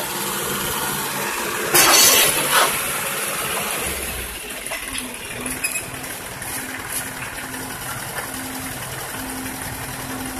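Tractor engine idling steadily. A short loud hiss comes about two seconds in, with a shorter one half a second later.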